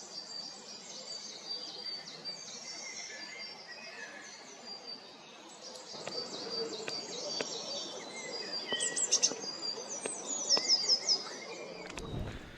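Woodland birdsong: several small birds singing and calling at once in high chirps and whistles, with a quick run of repeated high notes near the end.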